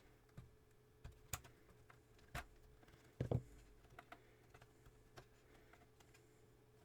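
Scattered light clicks and taps of small plastic and metal parts being handled while a cassette tape deck is taken apart, with one louder thump a little after three seconds. A faint steady hum lies underneath.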